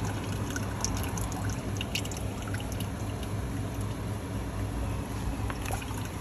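Liquid fertiliser trickling from a bucket's plastic tap into a plastic jerry can, with small drips and splashes, over a steady low rumble.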